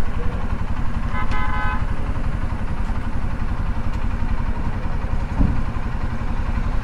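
Hero Honda Karizma's 223 cc single-cylinder four-stroke engine idling steadily, with a short vehicle horn toot about a second in.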